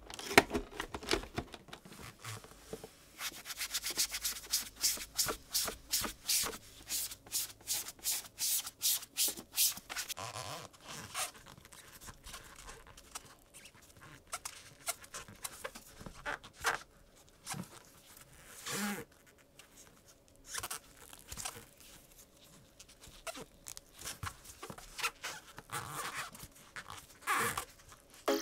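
Black rubber-gloved hands rubbing and squeezing a rubber-sheathed AC power cord, pulling its loose outer sheath back over the wires by hand: squeaky rubbing strokes. They come in a quick regular run of about two to three a second for the first third, then only now and then.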